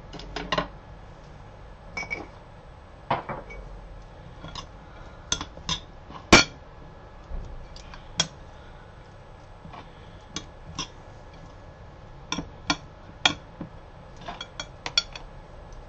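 Metal spoon and fork clinking and scraping against a ceramic bowl as a salad is tossed and stirred. The clinks are irregular, with one sharper knock about six seconds in.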